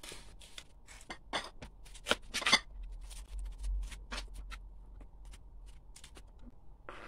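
Knife cutting a head of cauliflower into florets on a plastic cutting board: irregular crisp crunches and snaps as the stems are cut through. The crunches are thickest and loudest about two seconds in and come more sparsely after.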